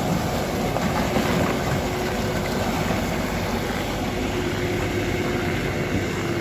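Heavy truck driving slowly past close by on snow and ice, its engine running steadily under a dense rush of noise.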